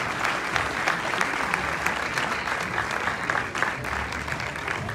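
Audience applauding, a dense clatter of many hands clapping that eases slightly near the end.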